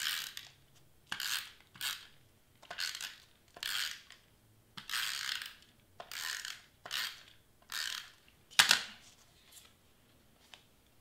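Handheld tape runner laying strips of adhesive onto cardstock: about a dozen short, rasping zips in quick succession, then one sharper click near the end.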